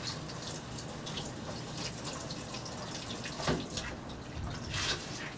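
Water running from a tap into a sink, splashing and dripping as a roll of fiberglass casting tape is wetted and squeezed out by gloved hands. Wetting activates the fiberglass casting tape before it is wrapped. A couple of sharper splashes come in the second half.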